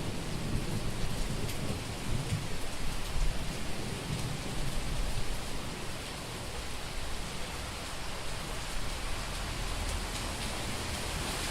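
Heavy rain falling steadily on a street during a summer thunderstorm, with a low rolling rumble of thunder through the first half that fades about halfway through.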